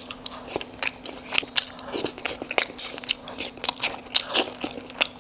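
Close-miked mouth sounds of a man biting into and chewing steamed momos, a quick irregular run of clicks and smacks, over a faint steady hum.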